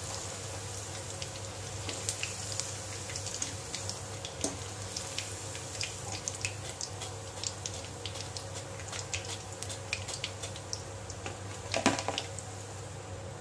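Chicken pakoras sizzling and crackling in hot frying oil in a steel kadhai as they are lifted out with a perforated metal skimmer. About twelve seconds in comes one louder clink, the skimmer knocking against the plate.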